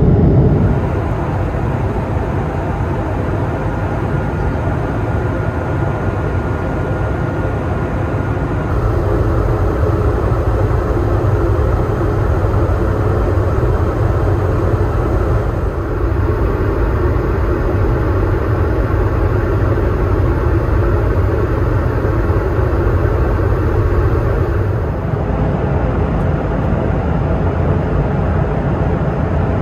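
Steady cabin noise of an Airbus A220-300 in cruise, a continuous engine and airflow rumble. Its character changes abruptly a few times, at about 9, 16 and 25 seconds in, and a faint thin tone is heard briefly near the start.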